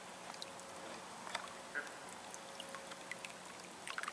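Faint dripping and light splashing of water around kayaks and a kayak paddle, with scattered small knocks and a cluster of them near the end.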